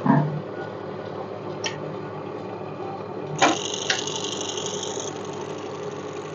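Industrial buttonhole sewing machine running: a steady motor hum with a few sharp clicks. About halfway in there is a clack, followed by a high whine lasting under two seconds.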